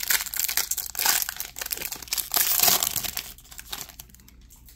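Wrapper of a 2015 Bowman Jumbo baseball card pack crinkling and crackling as it is torn open and the stack of cards pulled out. It is loudest about a second in and again in the middle, then dies away near the end.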